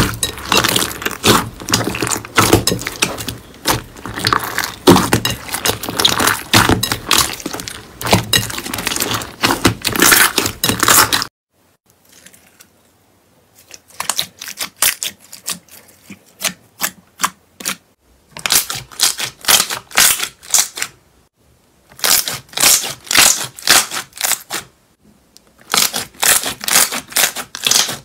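Hands kneading and pressing slime, with dense, loud squelching and crackling pops as the slime is squeezed. The sound stops about eleven seconds in; then a second slime, green and spread in a tray, is pressed and squeezed in four short spells of rapid clicking pops with brief pauses between them.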